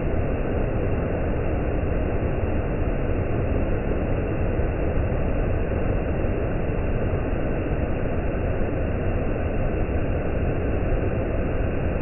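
Waterfall's steady roar of rushing, tumbling water: a deep, even rush with no breaks.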